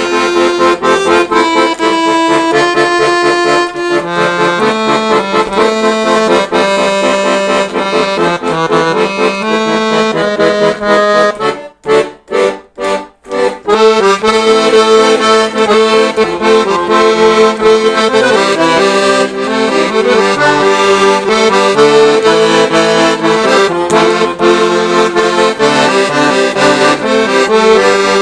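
Weltmeister Seperato accordion being played: a melody over sustained chords, with four short detached chords about twelve seconds in before the full playing resumes.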